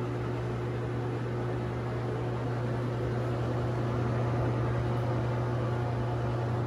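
Steady hum of a running ventilation fan: an even low drone with a faint whine, unchanging throughout.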